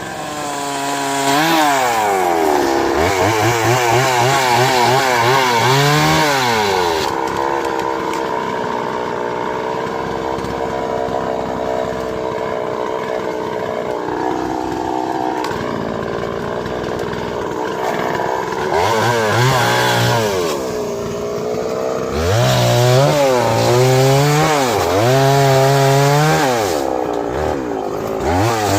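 Two-stroke chainsaw cutting through a big tree, its engine pitch rising and falling repeatedly as the chain bites into the wood, with a steadier stretch of continuous cutting in the middle.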